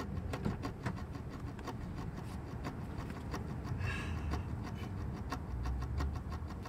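Faint handling sounds, light clicks and rustling, over a low steady rumble, as a car door is opened and a small box is picked up from the seat.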